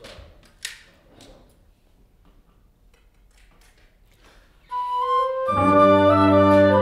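A few short soft noises, then nearly five seconds in an instrumental ensemble enters under the conductor's beat. One held woodwind-like note comes first, then a loud sustained full chord with a strong bass.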